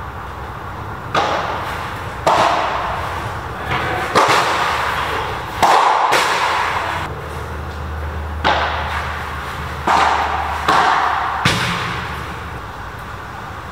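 Padel rally: a padel ball struck back and forth with solid padel rackets and bouncing, about ten sharp knocks at irregular rally pace, each echoing briefly in the enclosed court.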